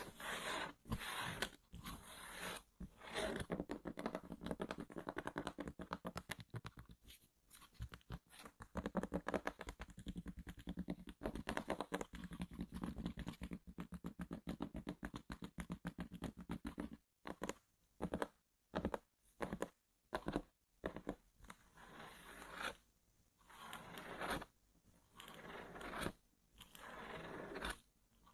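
Close-miked scratching and scraping on cardboard packaging: a few tearing swishes, then a long run of fast scratches, then separate strokes and slower, longer swipes near the end.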